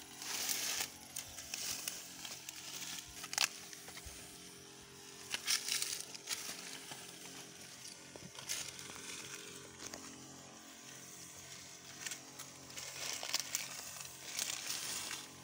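A backpack (knapsack) sprayer's nozzle hissing out herbicide mist in short bursts, along with rustling and a sharp snap of dry corn stalks and grass underfoot. A faint steady drone of held tones sits underneath.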